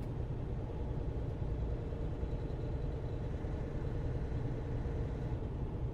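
Semi truck's diesel engine and road noise from inside the cab, a steady low drone while cruising at about 40 mph and climbing a snowy grade.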